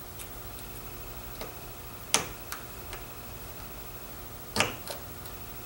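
A handful of small, sharp metallic clicks and taps as a small tool and parts are worked on a chainsaw carburetor body, with two louder clicks about two seconds in and again about four and a half seconds in.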